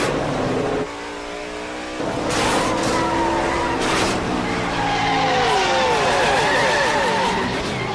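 V8 stock-car engines running at racing speed, with several sharp bangs as the cars slam into each other door to door, and tires squealing and skidding.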